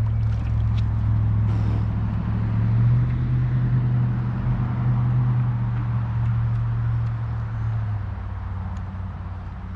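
A steady low engine hum that fades off after about eight seconds.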